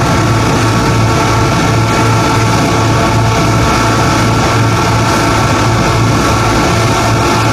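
EMD G26MC-2U (CC 202) diesel-electric locomotive engine running steadily and loud while charging its air compressor. A pulsing low throb sits under a steady high whine.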